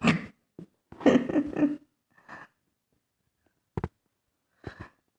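A man's breathy mouth sounds and a short murmur as he tastes hot meat curry off a steel ladle, followed by two short clicks a little later.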